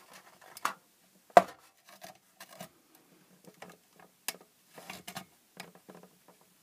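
Steel file levering and scraping against the thin aluminium wall of an LED floodlight case, trying to prise off LED driver modules that are glued down solid. Irregular clicks, knocks and short scrapes, the sharpest about a second and a half in.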